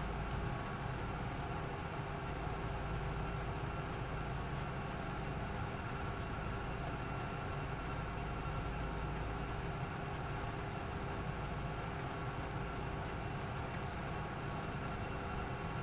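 Steady hum of an idling vehicle, with a few faint steady tones on top and no change throughout.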